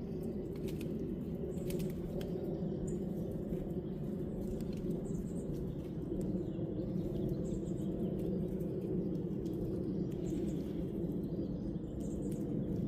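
Short, high bird chirps every second or two over a steady low rumbling noise.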